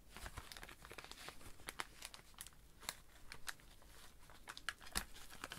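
Faint crinkling and scattered crackles of a vintage Topps Masters of the Universe wax-paper pack wrapper being pulled open by gloved fingers.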